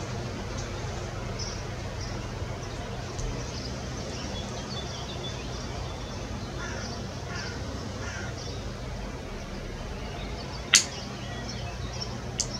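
Outdoor ambience: a steady hiss with a faint low hum, faint short bird calls here and there, and one sharp click about eleven seconds in, followed by a smaller click near the end.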